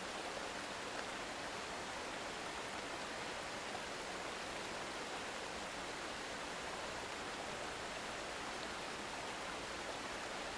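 Steady rain, heard as an even hiss that does not change.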